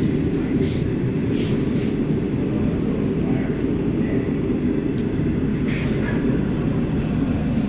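Forge burner running with a steady low rushing noise.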